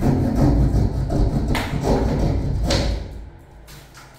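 Plastic exhaust-fan housing knocking and scraping as it is pushed up into a ceiling cutout, two sharp thuds about a second apart, over a steady low mechanical hum that cuts off about three seconds in.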